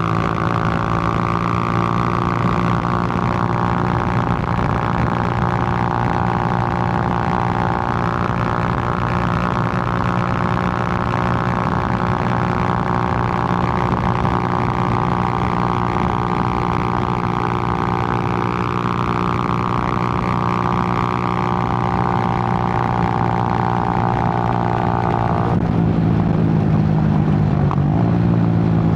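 Suzuki GN125's small air-cooled single-cylinder four-stroke engine running at a steady cruise. The note softens about 25 seconds in, as if the throttle is eased off.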